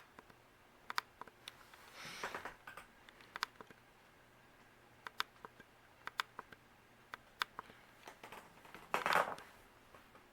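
Harbor Breeze Sienna ceiling fan running on medium speed with a faint steady hum, over which come many sharp, irregular clicks and two brief rustles, about two seconds in and near the end.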